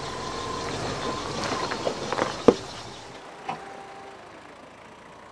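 Four-wheel-drive vehicle running slowly over rough ground, its engine and tyre noise building, with a few sharp knocks around two seconds in and a loudest single knock about two and a half seconds in. After about three seconds the sound drops away to a quieter rumble with one more small knock.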